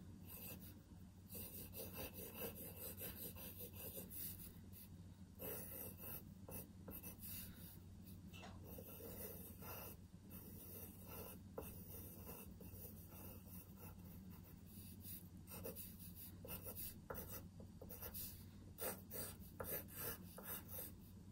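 Pencil scratching on paper in quick, irregular sketching strokes, faint throughout.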